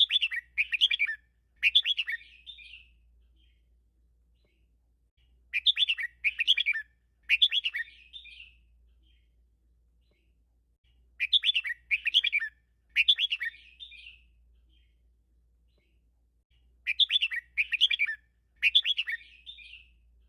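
Red-whiskered bulbul singing the same short phrase four times, about every five and a half seconds. Each phrase is three quick clusters of bright chirpy notes, the last trailing off. It is a 'teacher' song of the doubled (เบิ้ล) kind that keepers play to train caged bulbuls.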